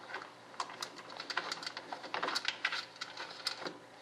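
Irregular small clicks and taps as hands handle parts and wiring inside an RC jet model's fuselage, several a second.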